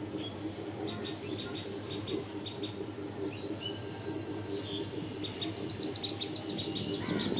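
Birds chirping: short, high, scattered calls, with a quick run of about a dozen falling notes near the end, over a steady low drone.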